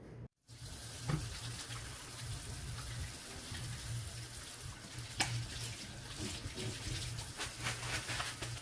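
Water running from a tap into a sink for handwashing: a steady rush that starts about a third of a second in, with two sharp knocks, about one and five seconds in.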